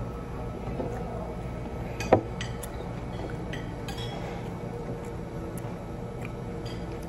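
Dishes and cutlery clinking during a meal: scattered light clinks, with one sharper knock about two seconds in, over a steady low hum.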